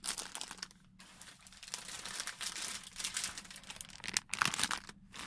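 Plastic toy packaging crinkling as it is handled, in irregular rustles with a short lull about a second in and a louder flurry near the end.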